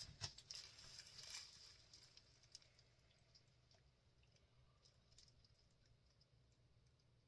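Faint rustling and small clicks of a bag and a paper note being handled in the first two or three seconds, then near silence.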